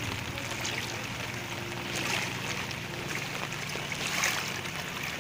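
Outdoor ambience over standing floodwater: a steady rushing, watery noise with soft swells about two seconds in and again a little after four seconds.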